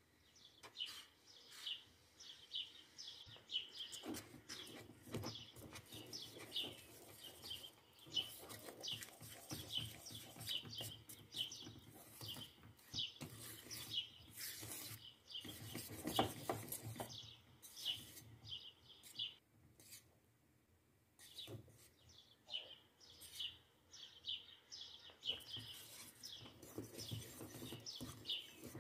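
Small birds chirping: a quick, steady run of short, high chirps that pauses briefly about two-thirds of the way through, with a few soft knocks underneath.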